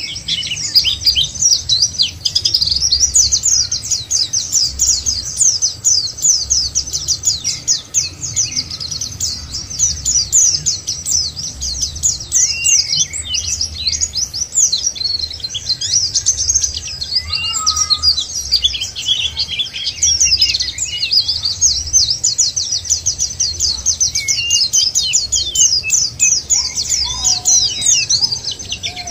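White-eyes (pleci, Zosterops) singing: a dense, continuous run of rapid high-pitched chirps and twitters, with a few lower notes now and then.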